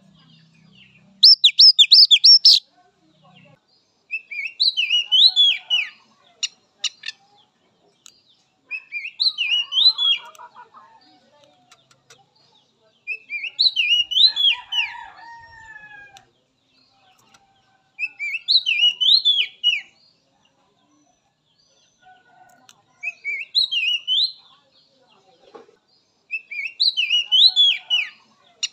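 Oriental magpie-robin (kacer) singing a short whistled phrase of quick rising and falling notes, repeated seven times about every four seconds; the first phrase is higher and the loudest. A fainter, lower falling call sounds about halfway through.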